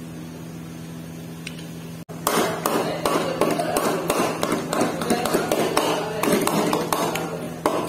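Metal spoon knocking and scraping against a metal karahi while stirring a chicken curry: rapid, irregular clatter starting about two seconds in, over a steady low hum.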